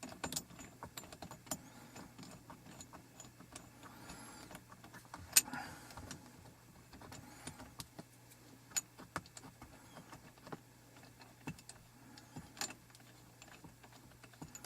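Scattered light clicks and clinks of hand tools and metal shifter parts being handled, with one sharper knock about five seconds in.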